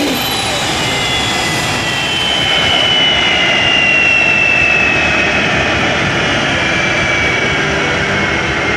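Boeing 747SP's Pratt & Whitney JT9D turbofan engines running with a steady roar and a high whine that slowly falls in pitch.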